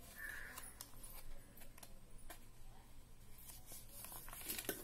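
Faint rustling and crackling of craft paper being folded and creased by hand, with scattered small clicks and a brief cluster of crinkles near the end.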